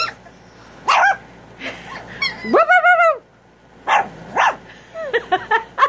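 Three-week-old St. Bernese puppy giving a string of short, high-pitched puppy barks and yips, with one longer drawn-out yelp about halfway through and a quick run of small yips near the end.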